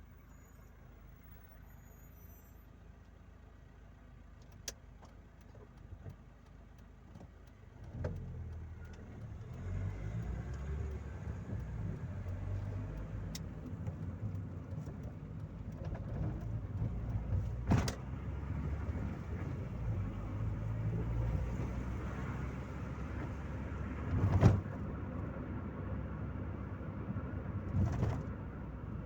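Inside a Chevrolet Corsa Maxx: a faint low hum with a single click, then, about 8 s in, the car pulls away and the low engine and road rumble builds and holds. It is broken by a few sharp knocks, the loudest about 24 s in.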